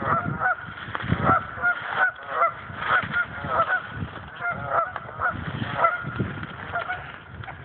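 Geese honking, many short overlapping calls a second, thinning out near the end.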